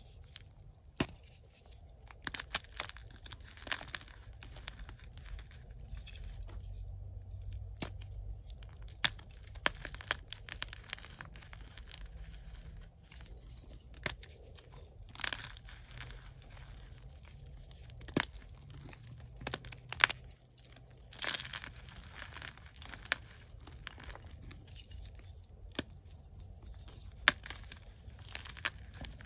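Soft gym chalk blocks crushed and squeezed by hand: irregular sharp crunches and snaps as chunks break, with a powdery crumbling rustle in between.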